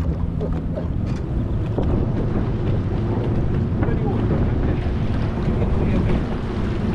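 Boat engine running steadily under way, with heavy wind buffeting the microphone.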